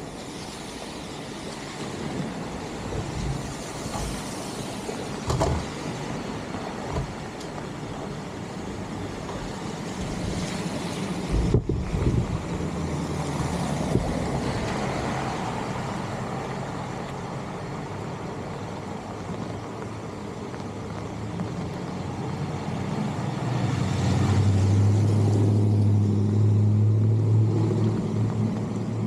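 Steady hiss of rain and water on a flooded street, with a few knocks. A motor vehicle's engine comes in about 24 seconds in as a steady low hum and is the loudest sound until the end.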